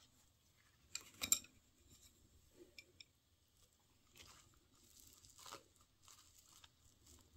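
Soft tabletop handling sounds: a short cluster of clicks about a second in, then a few quieter ticks and rustles as a perilla leaf is lifted and a seaweed rice ball is set onto it with wooden chopsticks.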